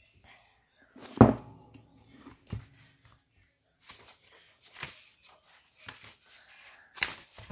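A paperback book handled on a wooden table: it is set down with a thump about a second in, then its cover is opened and pages are leafed through, with papery rustles and light knocks.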